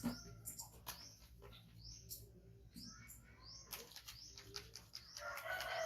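Small birds chirping, short high chirps rising in pitch several times a second, with light clicks; a lower call rises near the end.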